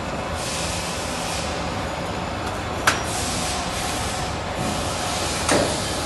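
Electric lock forming machine for HVAC duct making running, its rollers forming a lock seam along the edge of a galvanized steel sheet as it is fed through: a steady rolling, hissing run, with two sharp metallic knocks a little before halfway and near the end.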